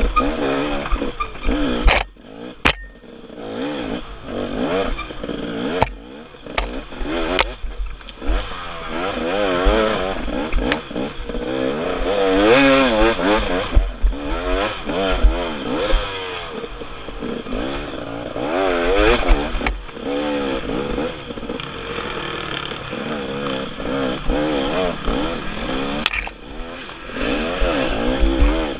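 Dirt bike engine revving up and down again and again as the bike is ridden over rough trail, with several sharp knocks and clatter in the first few seconds.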